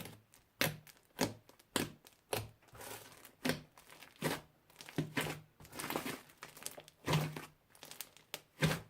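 Crunchy slime being pressed and squished by hand, giving a string of sharp crackles and pops a little under twice a second, with crinkling between them.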